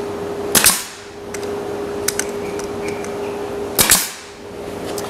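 Pneumatic brad nailer firing twice, about three seconds apart: two sharp snaps as it drives 16-gauge stainless steel brads into cedar top boards, over a steady background hum.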